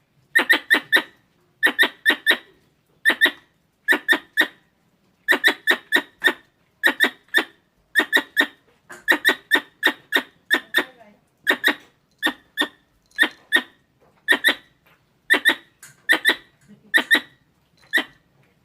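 Squirrel calling: short, sharp chirps in quick clusters of two to four, repeating about once a second in a steady rhythm.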